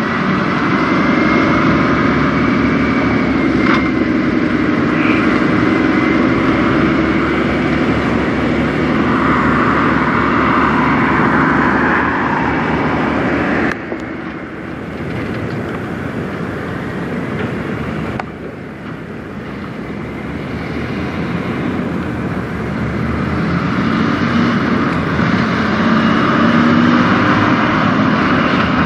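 Kenworth semi trucks' diesel engines running as the trucks drive off, a steady drone with a low wavering tone. The sound cuts abruptly twice about halfway through.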